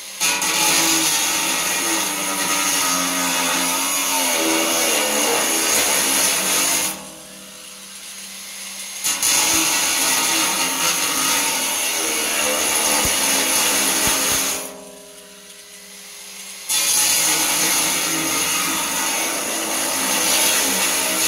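Angle grinder with a cut-off disc cutting into thick aluminum stock clamped in a vise, really loud. It cuts in three bouts of about six seconds each, with two short quieter pauses between them.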